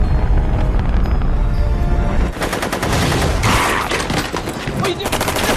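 Movie sound effects: a low explosion with music under it, then from about two seconds in, rapid gunfire of many shots a second, like a machine gun.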